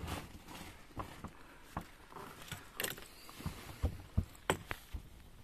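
Irregular light clicks and knocks from fishing tackle being handled and cast in a small boat, a dozen or so short sharp strikes spread unevenly.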